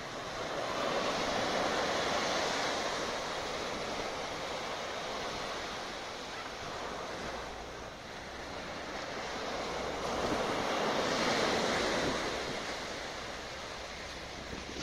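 Small waves breaking and washing up a sandy beach, the surf swelling about two seconds in and again about eleven seconds in.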